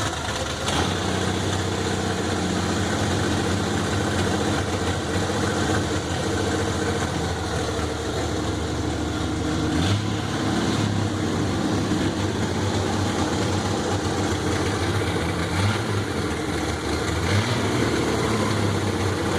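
Chevrolet Caravan SS's 4.1-litre straight-six, freshly rebuilt, idling with a deep, steady rumble. The note lifts slightly about halfway through, with a couple of small revs near the end.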